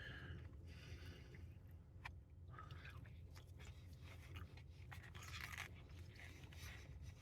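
Faint chewing of a mouthful of food, with a few soft mouth clicks.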